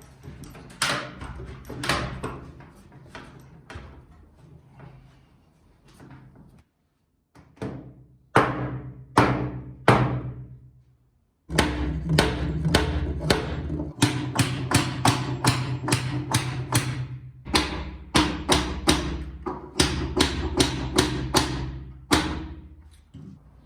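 Repeated wooden mallet blows on wood, in fast runs of several strikes a second, with a ringing low resonance under them; the sound cuts out abruptly twice.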